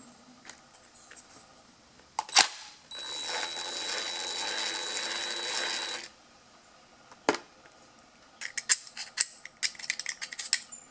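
An aerosol can of carburetor cleaner sprays in one steady hiss for about three seconds, with a sharp click before it and another after it. Near the end comes a quick run of light metallic clicks and clinks as small carburetor parts are handled.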